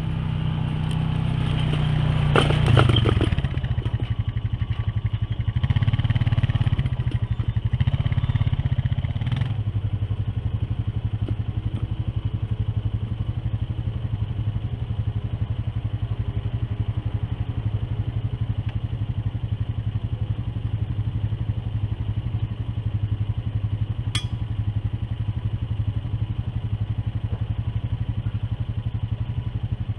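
Kubota KX-018 mini excavator's diesel engine running, its pitch and load surging several times with a few clanks and knocks in the first ten seconds, then running steadily. A single sharp click comes late on.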